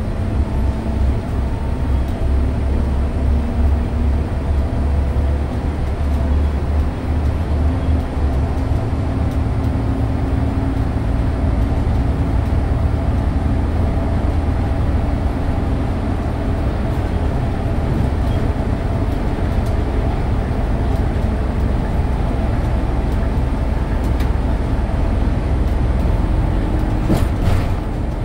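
Scania OmniLink city bus running at highway speed, heard from the driver's seat: a steady low drone of drivetrain and road rumble, with a faint whine that rises slowly in pitch over the first several seconds. A single sharp click comes near the end.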